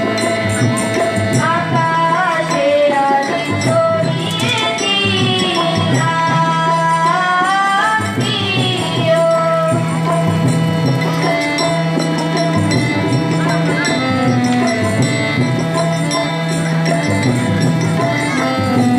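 Live folk-style song with a harmonium holding steady chords, a tabla keeping a rhythm, and a voice singing the melody with gliding ornaments.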